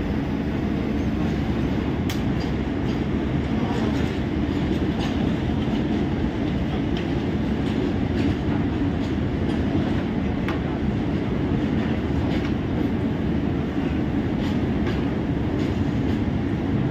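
WAP-5 electric locomotive standing with its machinery running: a steady hum and rush with a faint steady tone underneath, and a few light clicks.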